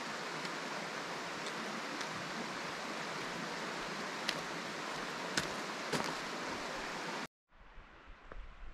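Steady rush of a river flowing over rocks, with a few sharp taps of trekking poles on tarmac. It cuts off suddenly about seven seconds in, giving way to much quieter outdoor ambience.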